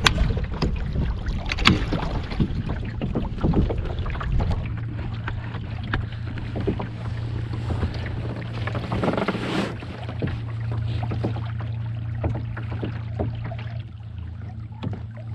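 Electric kayak trolling motor humming steadily, its shaft lifted partly out of the water, with small splashes and knocks of water against the hull. Wind buffets the microphone for the first few seconds, and the steady hum comes through plainly after that.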